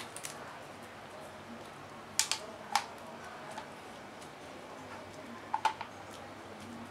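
A few sharp, light clicks in two small clusters, about two seconds in and again about five and a half seconds in, over a faint steady room hum, from hand work with a resin brush on the wet fiberglass lay-up.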